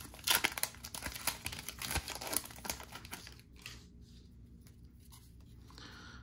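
Wrapper of a Topps baseball card pack crinkling and tearing as it is opened, then the cards being slid out and handled. The crackling stops about three seconds in, leaving only faint card handling.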